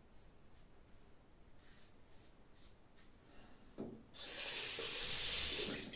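Short, faint scraping strokes of a Mühle R41 safety razor over lathered stubble. About four seconds in there is a knock, then a sink tap runs water for about two seconds, loudly, and is shut off.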